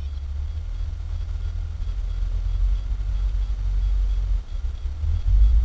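A heavy machine, which the recordist takes for a bulldozer, rumbling low and steady, slowly growing louder, with a brief dip about four and a half seconds in.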